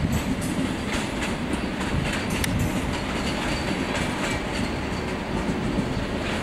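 SBB passenger train running past close by, coaches and an Re 460 electric locomotive, its wheels clacking irregularly over rail joints and points over a steady rolling rumble.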